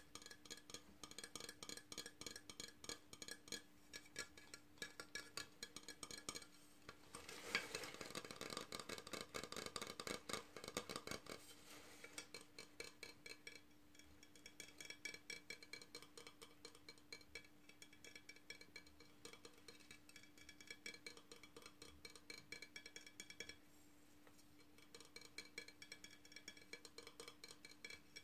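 Long fingernails tapping rapidly on a small glazed ceramic boot ornament: a quick, continuous patter of light clicks that ring slightly. The tapping turns denser and louder for a few seconds, about seven seconds in.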